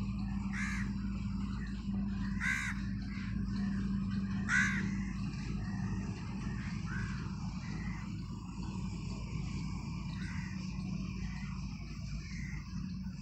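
Crow cawing: three loud caws in the first five seconds, then a few fainter ones, over a steady low hum.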